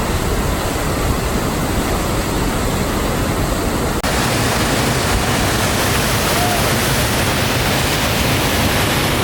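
Loud, steady rushing of whitewater, a dense even noise with no tones in it. It breaks off for an instant about four seconds in and then carries on.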